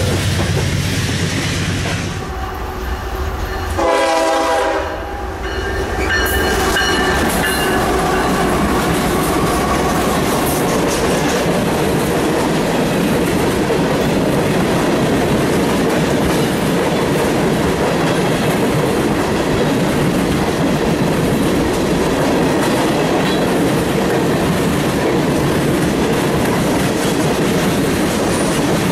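A diesel locomotive's air horn sounds once for about a second and a half, some four seconds in, as a freight train arrives. Then the train's tank cars roll past close by, their wheels making a steady loud rumble and clatter on the rails.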